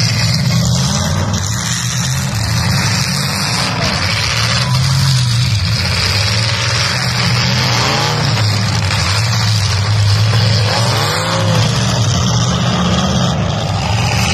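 Demolition derby cars' engines revving hard and wheels spinning in the dirt, a loud continuous din with engine pitch surging up and down a few times.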